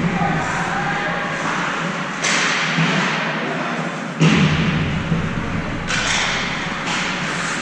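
Ice hockey play in an arena: sudden hissing scrapes of skate blades on the ice, several times, and a loud thud about four seconds in.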